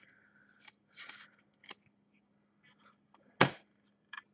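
Clear plastic card sleeves and holders being handled: soft crinkling rustles and a few small clicks, then one sharp knock about three and a half seconds in.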